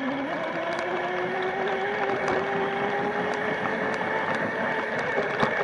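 Small dirt bike's motor running under way, one steady tone that creeps slowly upward in pitch, with scattered light ticks.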